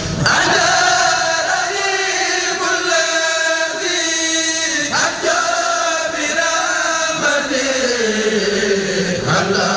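Islamic devotional chanting in Arabic: voices hold long notes that slide and waver, with a new phrase starting about five seconds in and a slow downward slide near the end.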